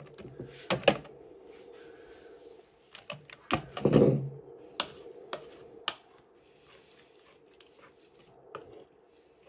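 A series of knocks and clacks over the first few seconds, the loudest about four seconds in, then only faint sounds. An electric hand mixer's beaters are lifted out and set down, and a wooden spoon knocks and scrapes inside a stainless steel pot of freshly separated butter.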